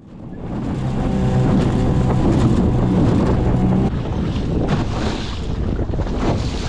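A small boat motor runs at a steady pitch and cuts out about four seconds in. After that there is wind on the microphone and some water noise.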